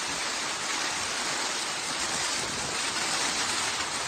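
Torrential rainstorm with strong wind: a dense, steady rushing of heavy rain.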